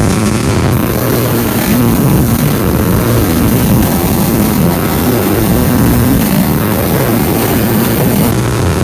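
Electric welding arc crackling steadily as a bead is laid along a T joint in 3/16-inch plate, over a steady low hum.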